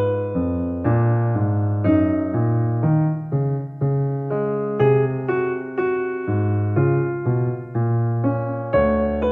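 Background music: a slow piano piece, notes struck about twice a second over held bass notes.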